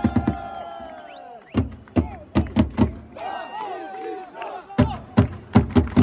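Supporters' drum struck with sticks in two sets of four even beats, with a crowd of football fans chanting and shouting between the sets. A fast drum rhythm and a held note die away in the first second.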